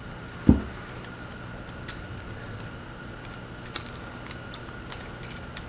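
Light clicks and ticks of a screwdriver and fingers working a residential outlet's screw terminals as the wires are unhooked, with one dull knock about half a second in.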